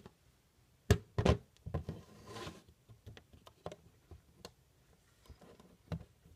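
Plastic Lego Technic beams and pins clicking and knocking against each other and on a tabletop as the model is handled and turned over. The two loudest knocks come close together about a second in, followed by a short scrape and scattered lighter clicks.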